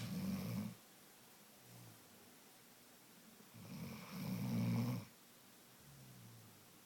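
A sleeping pet snoring in a slow rhythm. There is a loud snore at the start and a louder one about four seconds in, each followed a second or so later by a softer one.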